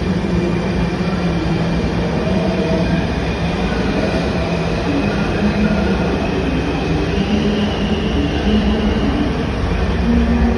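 Washington Metro subway train pulling out of an underground station: a loud steady rumble of wheels on rail, with a motor whine that rises in pitch as the train gathers speed.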